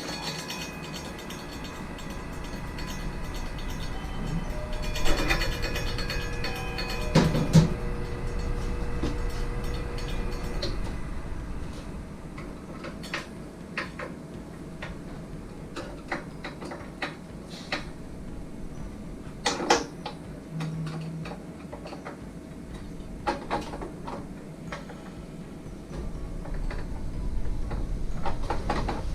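Irregular clicks and knocks of metal parts being handled on a meat slicer, with a few louder clanks among them.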